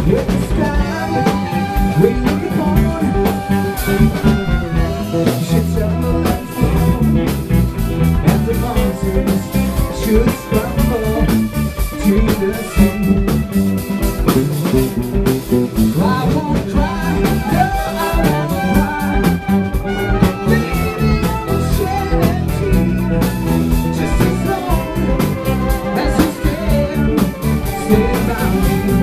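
Live band playing: trumpet, drum kit and electric bass, with a man singing into a microphone over them.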